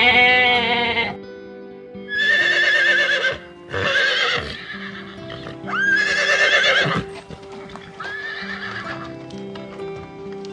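A horse whinnying several times, each call rising quickly and then held with a wavering, shaking pitch, over soft background music with steady sustained notes.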